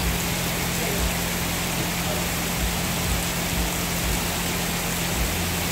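Heavy tropical rain falling steadily on pavement and foliage: a dense, even hiss with a steady low hum beneath it.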